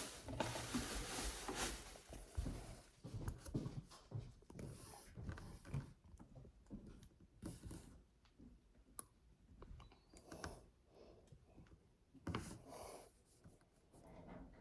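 Faint handling sounds of slime-making supplies: a rustle at the start, then scattered small clicks, taps and short scrapes of bottles and a bowl being handled.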